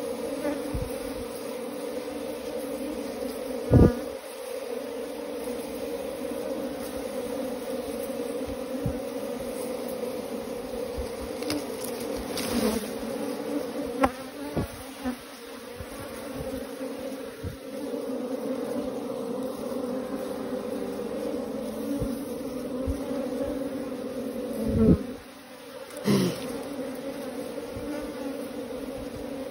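A colony of honeybees buzzing on their exposed combs: a steady, even hum of many wings, with a few single bees swelling louder as they fly close. A few short knocks break in, the loudest about four seconds in.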